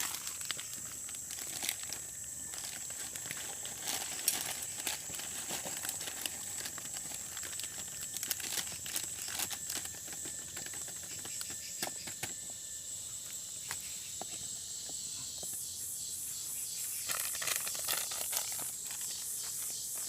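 A steady high insect trill, with irregular crinkling, rustling and clicking of things being handled at a camp stove.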